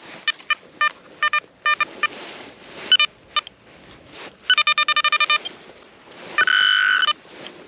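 Metal-detecting pinpointer beeping: separate short electronic beeps, then a fast run of pulses about five seconds in, then a steady continuous tone near the end as it closes in on a buried metal target.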